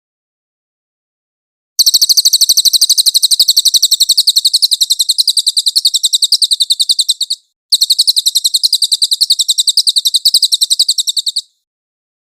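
Cililin bird singing a rapid, high, evenly repeated trill in two runs, the first about five and a half seconds long and the second about four, with a brief break between them.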